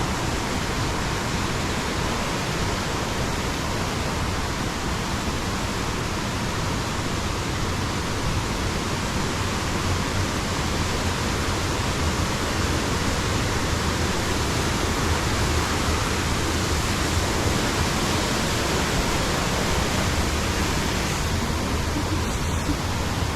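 Rushing river water, a steady, even rush with no break.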